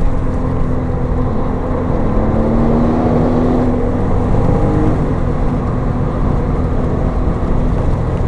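Porsche 911 Turbo's twin-turbo flat-six and road noise heard from inside the cabin while driving hard on a race track. The engine note climbs for a couple of seconds, then eases off about halfway through.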